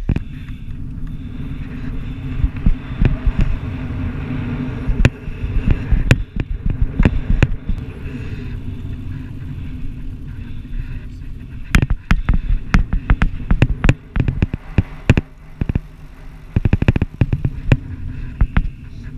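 Wind and riding noise on a GoPro microphone on a fat bike crossing beach sand: a steady low rumble with many sharp clicks and knocks, in clusters from about twelve to fifteen seconds in and again near the end.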